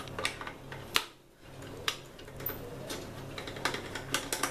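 Irregular clicks and light knocks as a metal pop-up toaster and a screwdriver are handled, the sharpest click about a second in and a quick cluster near the end.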